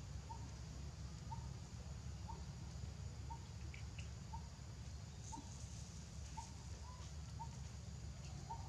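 Outdoor ambience: a bird repeating a short, single note about once a second over a low steady rumble, with a couple of faint higher chirps midway.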